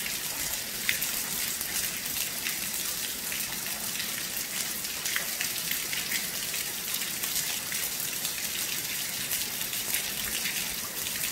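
Heavy, steady rain: an even hiss with many separate drop impacts scattered through it.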